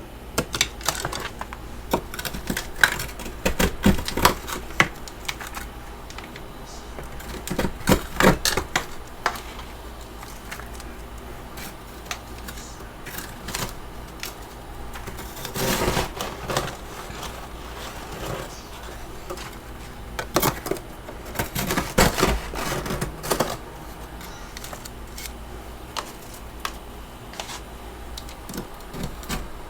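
Humidifier frost being scraped and crunched: rapid crisp crackling clicks, with louder bursts every few seconds.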